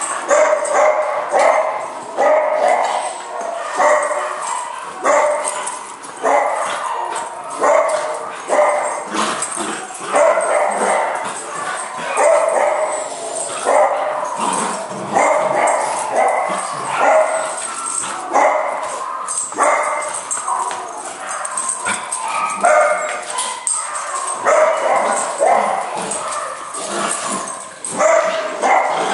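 Puppies play-barking and yipping while wrestling, short barks coming about once a second.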